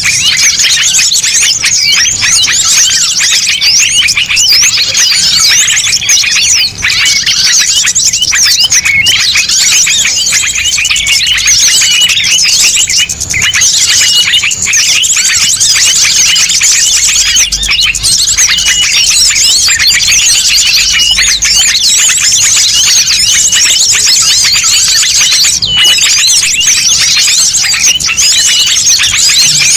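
A noisy mixed chorus of many small songbirds chirping and twittering all at once, in a bird-lure recording meant to draw small birds in. Rapid high chirps crowd over one another without a break, with one short piping note repeating every second or two.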